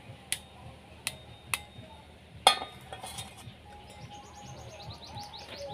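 An egg knocked against the rim of a small stainless-steel bowl to crack it: a few sharp taps, the loudest about two and a half seconds in. Near the end a bird chirps rapidly, a quick run of short rising notes.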